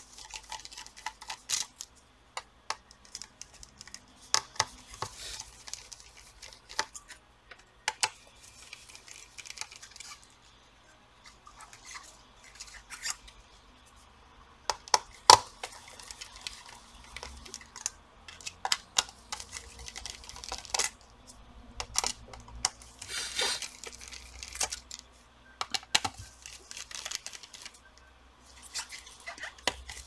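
Precision screwdriver backing out the small screws of a laptop's heat-pipe cooler and fan: irregular light clicks and short scrapes of the bit on the screw heads and metal, with one sharper click about halfway through.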